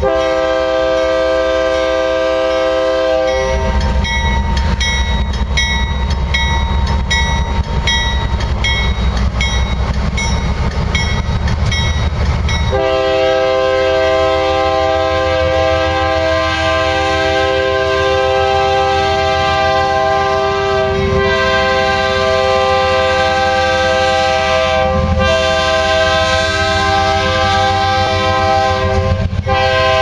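Air horn of a GE AC4400CW diesel locomotive sounding at close range over the deep rumble of its diesel engine as it passes. The horn sounds for the first few seconds, drops away while the engine rumble dominates, then comes back about thirteen seconds in as long blasts with a few short breaks.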